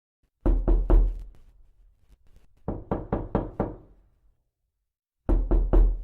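Knocking on a door, heavy with a low thud: three knocks, a pause, about five quicker knocks, then three more near the end.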